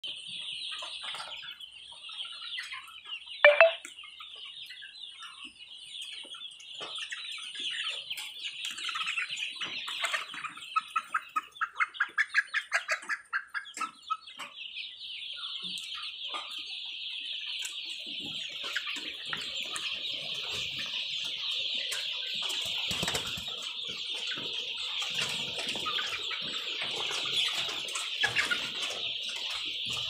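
A flock of young chickens peeping and chirping in a dense, continuous high-pitched chorus. One loud call about three seconds in and a quick run of loud clucks around eleven to thirteen seconds stand out. Scuffing and knocking sounds join in the second half.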